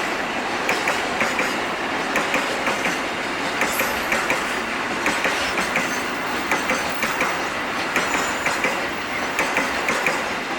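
Train wagons rolling past, their wheels clacking over the rail joints in a steady, repeating rhythm of a few clacks a second over a continuous rumble.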